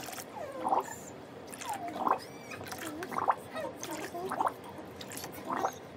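Water splashing and dripping in a plastic bucket as water is poured in from a plastic bowl and a hand moves through it. Irregular splashes and plinks come about one or two a second.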